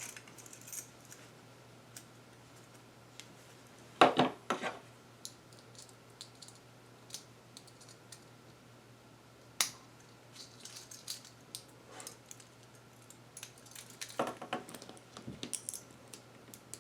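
Keys and small metal gear clicking and clinking while being taken off and put onto a quick-release key ring buckle, with a sharp click about four seconds in, another near ten seconds, and a run of jingling near the end.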